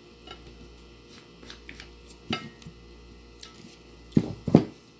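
Small clicks and handling noises of someone eating rice by hand at a table, with a louder knock about two seconds in and two louder knocks close together near the end.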